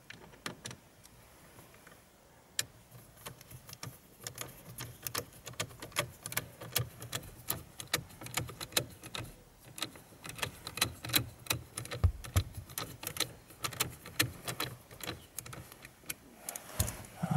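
Screwdriver working T15 Torx screws loose in a VW Golf 7 steering wheel, with rapid, uneven clicking of the tool and metal starting about two and a half seconds in.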